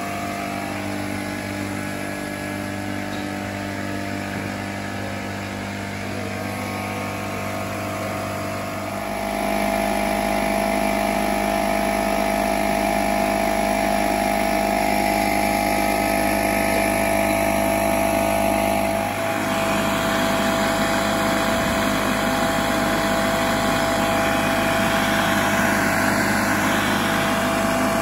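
Engine-driven machinery running steadily, a constant mechanical hum that steps up louder about a third of the way in and changes tone a little past the middle.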